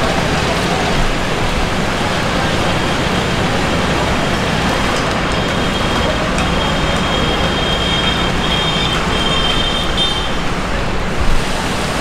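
Steady outdoor background noise with a road-traffic rumble; a faint high thin tone comes in about halfway through and stops shortly before the end.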